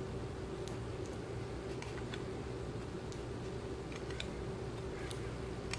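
Faint, irregular light clicks of metal parts being handled as the brass bearing assembly is turned along the actuator's threaded worm-gear rod, over a steady low hum.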